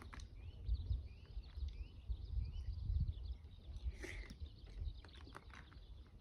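Small birds chirping in short calls, over a low uneven rumble.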